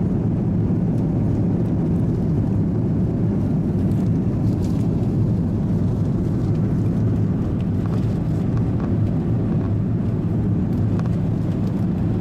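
Steady engine and airflow drone heard inside the cabin of an Airbus A330-300 airliner in flight, a constant low rumble with a faint hum.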